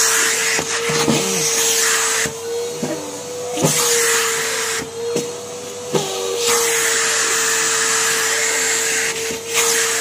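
Numatic Henry vacuum cleaner running, a steady motor hum under a rush of air from the hose, the air noise dipping several times as the sweatpant fabric is sucked against the nozzle.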